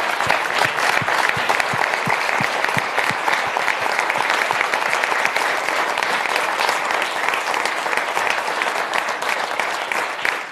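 Studio audience applauding: sustained, dense clapping at a steady level.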